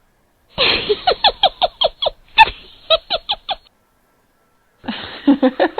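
Stock laughter sound effects previewed one after another: a run of quick, choppy laugh syllables for about three seconds, then after a short gap a second laugh clip starts near the end.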